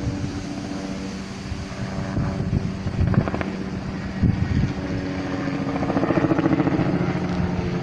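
An engine running steadily with a droning hum that grows louder about six seconds in, as if coming closer.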